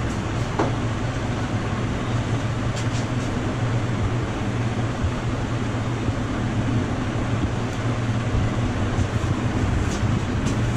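Steady roadside traffic noise with a continuous low hum, and a few faint, scattered clicks.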